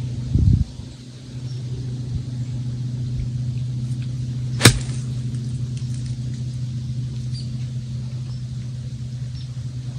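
An iron striking a golf ball on an approach shot: one sharp crack about halfway through. A steady low engine hum runs underneath, and a short low thump comes just after the start.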